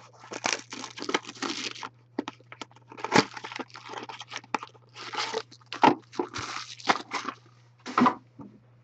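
A Topps Triple Threads baseball card box being torn open and its wrapping crinkled by hand, in irregular rustles and sharp crackles.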